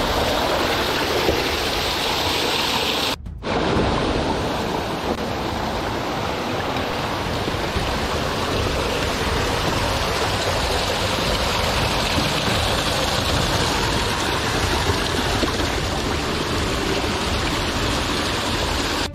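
Steady rush of water from a mountain stream tumbling over rocks, broken off for a moment about three seconds in.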